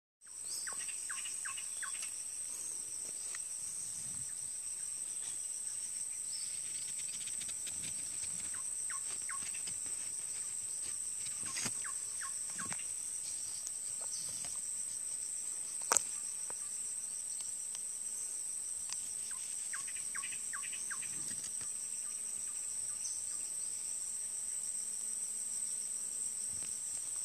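Steady, high-pitched drone of an insect chorus, with short chirping calls coming in clusters now and then. A single sharp click a little past halfway is the loudest moment.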